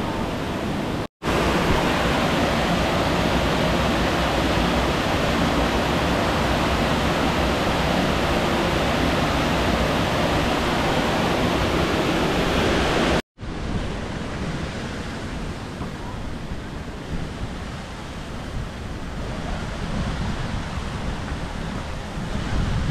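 Steady rush of a man-made waterfall, heard from behind the falling water. About thirteen seconds in it breaks off abruptly and gives way to quieter outdoor ambience with wind on the microphone.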